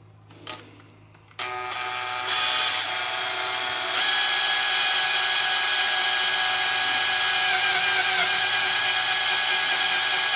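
Electric drill with a 5/32-inch bit boring into an aluminum switch holder, starting about a second and a half in. It grows louder in two steps over the next few seconds, then runs at a steady whine.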